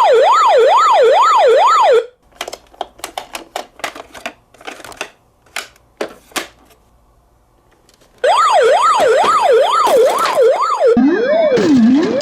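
Electronic wail siren of toy emergency vehicles, rising and falling fast, about twice a second. It stops at about two seconds and a run of sharp clicks and taps follows. After a short near-quiet spell the fast wail returns at about eight seconds, and near the end it gives way to a lower, slower wail.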